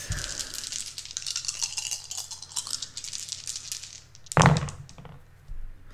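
Elder Sign game dice shaken in the hand, rattling and clicking quickly for about four seconds, for a re-roll. Then one louder thump about four seconds in.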